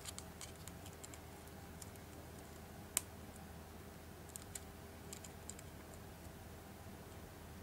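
Faint, scattered small clicks and taps of fingers and a plastic pry tool handling a flex-cable connector inside an opened Samsung tablet as the connector is fitted, with one sharper click about three seconds in.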